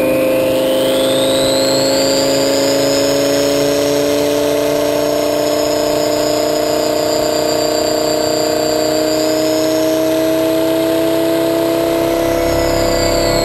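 Twin-turbocharged Lamborghini Gallardo Superleggera V10 cruising, heard from close to the exhaust: a steady engine note that climbs slowly in pitch as the revs creep up, with a thin high whine over it. The low rumble grows a little near the end.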